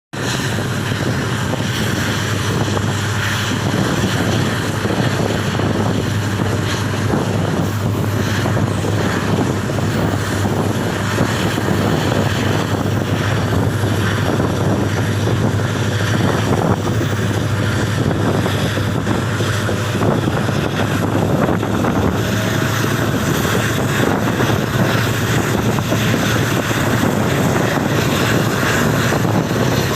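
EMD diesel locomotive's engine humming steadily, a deep even drone with rushing wind and running noise over it.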